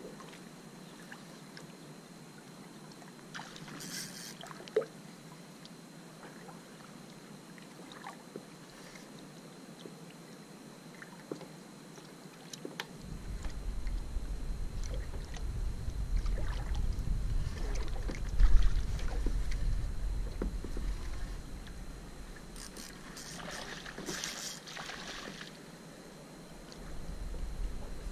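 Paddling a paddle ski: paddle strokes and water trickling and lapping against the hull, with scattered small splashes. A low rumble comes in suddenly about halfway, fades a few seconds later and returns near the end.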